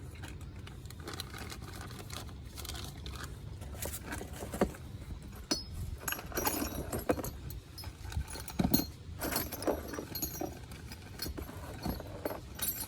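Small metal fittings and tools clinking and knocking as they are handled, in irregular short clicks and clinks.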